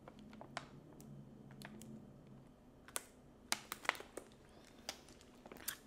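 Faint, scattered sharp clicks and crackles from a thin plastic Aquafina water bottle as a person drinks from it, bunched together a little past the middle.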